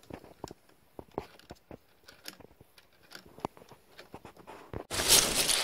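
Plastic Lego Technic parts of a bucking-horse mechanism clicking and clattering irregularly as a hand works it. Near the end a loud rushing noise cuts in suddenly.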